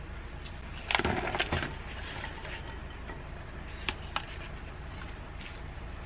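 Kitchen handling sounds while food is prepared on a wooden cutting board: a short clatter of knocks about a second in, then two light clicks a little after the middle, over a steady low hum.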